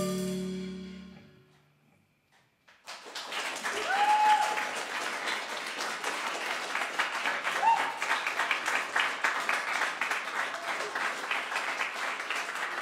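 The band's final held chord fades out over about a second and a half. After a short silence, audience applause breaks out and carries on, with a few voices calling out.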